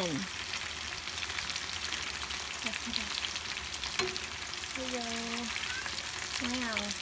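Breaded meat deep-frying in a pan of hot oil: a steady sizzle full of fine crackling, with one sharper click about four seconds in.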